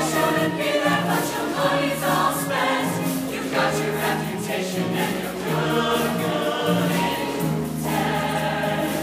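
Mixed show choir of male and female voices singing together in parts.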